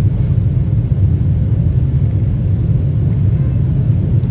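Jet airliner rolling along the runway, heard from inside the passenger cabin: a steady low rumble.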